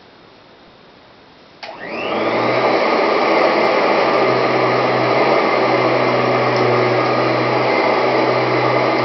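Royal Classic upright vacuum cleaner switched on with a click about a second and a half in; its motor spins up with a rising whine and then runs steadily.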